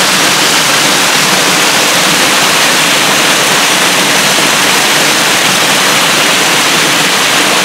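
Creek water pouring over a small waterfall in a steady, loud rush. The flow is heavy, swollen by rain running out of the lake's overflow.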